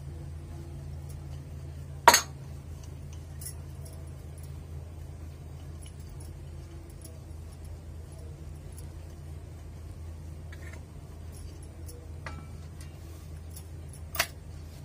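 Dough being rolled out with a wooden rolling pin on an aluminium plate: two sharp metallic clinks, the first about two seconds in and louder, the second near the end, with a few faint ticks over a steady low hum.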